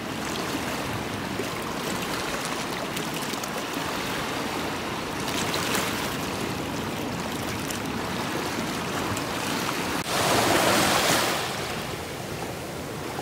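Small waves lapping and washing up on a sandy beach, a steady wash of water, with one louder surge about ten seconds in.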